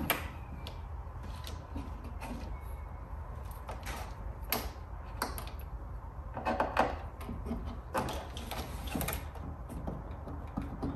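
Hands working plastic wiring connectors and trim inside an open pickup tailgate: scattered light clicks and knocks, with a few louder ones about four and a half, seven and nine seconds in, over a low steady hum.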